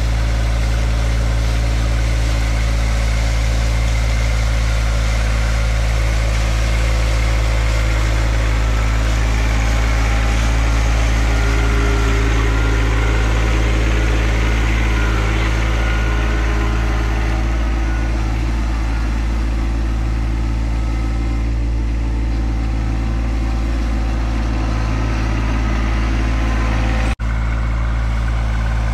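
John Deere 2025R compact tractor's three-cylinder diesel engine running at a steady speed as the tractor drives. The sound drops out for a split second about a second before the end.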